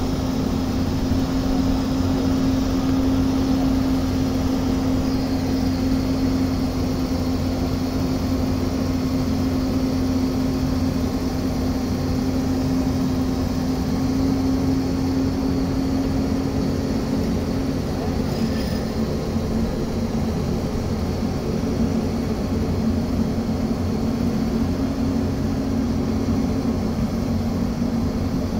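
Hyundai crawler excavator's diesel engine running at a steady pitch while the machine swings a concrete bucket slung from its arm.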